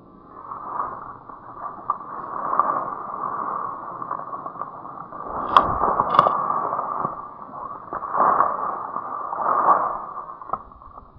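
Rustling and crunching in dry brush and leaf litter, swelling and fading several times, with two sharp clicks a little over half a second apart about halfway through.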